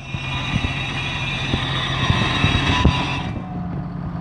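Log skidder's chained front wheel screeching as the machine rolls, with scattered knocks, over the diesel engine's steady running; the screech cuts off about three seconds in, leaving the engine. The screech is taken for a failing front wheel bearing at the end of the axle housing.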